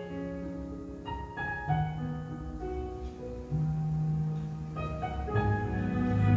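Slow, soft piano music: held chords changing every second or so, growing louder toward the end.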